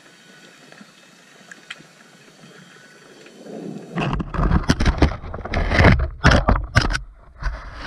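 Underwater ambience with faint scattered clicks, then about four seconds in a loud, uneven rushing and buffeting of water against the camera housing as the camera is moved quickly through the water.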